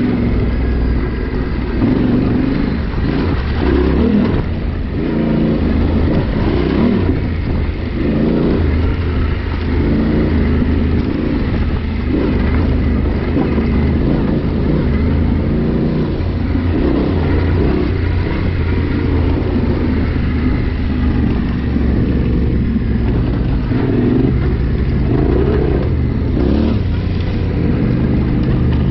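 Adventure motorcycle engine running continuously as it picks its way down a rocky trail, its revs rising and falling with the throttle.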